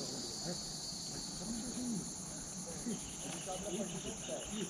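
Insects chirring in a steady, high-pitched chorus, with a second, lower pulsing trill joining about three seconds in.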